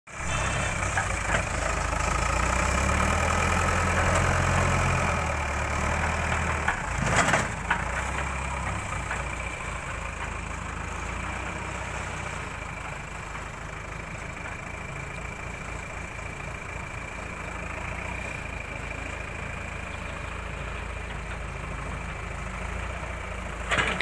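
JCB backhoe loader's diesel engine running, working harder for the first few seconds and then settling to a steady, lower run. A single sharp clank sounds about seven seconds in.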